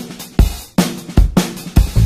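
Background music: a drum beat alone, sharp kick and snare hits roughly two or three a second.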